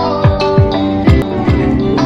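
Music: deep kick-drum beats about twice a second under held chords.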